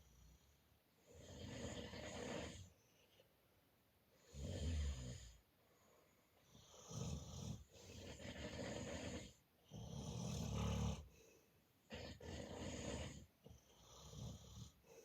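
Snoring in sleep: a noisy breath every two to three seconds, the loudest ones, about four and ten seconds in, with a low buzz.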